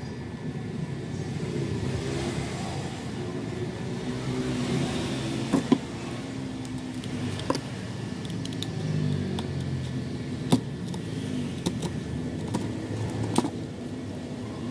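Craft knife blade scraping and shaving the edge of a panel of glued wooden ice cream sticks, with a few sharp clicks, over a steady low rumble.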